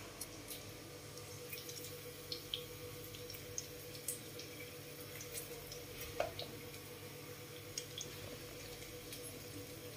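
Faint, scattered drips and small ticks as lemon juice is squeezed by hand into a steel mixer jar of coconut pieces, over a steady low hum.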